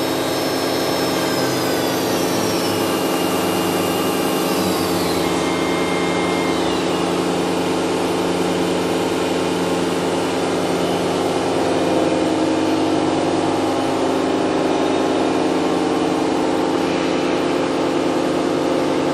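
Toshiba MPF-2114C machining center spindle running at high speed, near 7,900 rpm, with a steady machine hum. Its high whine steps down in pitch a few times during the first seven seconds or so.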